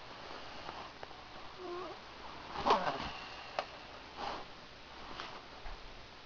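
A sleeper snoring: a few short, irregular snorts and snuffles, the loudest a little under three seconds in.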